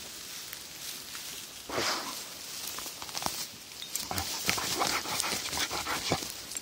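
A dog pushing through tall grass close to the microphone: stems swishing and crackling against it. There is one longer swish about two seconds in, then a run of quick crackles and taps through the second half.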